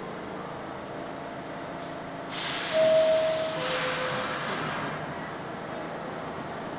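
New York City subway trains at a station: a steady rumble as a 6 train pulls away. About two seconds in, a sudden loud hiss of air runs for a couple of seconds, with two held tones, the second lower, sounding over its start.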